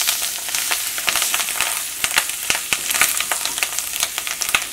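Fish roe frying with onions and spices in a stainless steel saucepan: a steady sizzle full of small crackling pops, the tiny eggs bursting in the heat, as a metal spoon stirs the pan.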